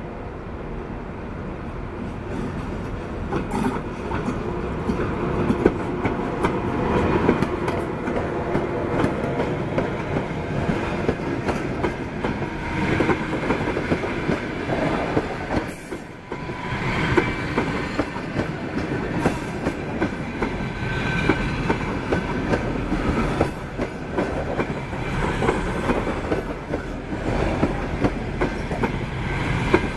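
Passenger train hauled by a ChS4T electric locomotive passing close by, the coaches' wheels clattering over the rail joints. It grows louder over the first few seconds, then runs on steadily with a brief dip about halfway through.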